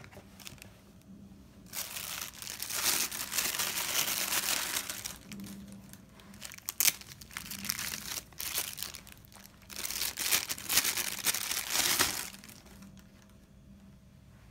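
Clear plastic packaging bag crinkling and rustling in long bursts as a camera battery grip is pulled out of its box and unwrapped, with a couple of sharp clicks from handling; it dies down near the end.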